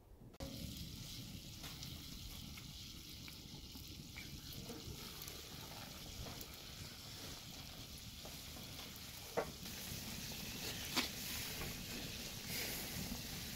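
Food sizzling as it fries in a pan, a steady hiss that starts suddenly about half a second in, with a few sharp clicks of utensils against the pan, the loudest about nine and a half and eleven seconds in.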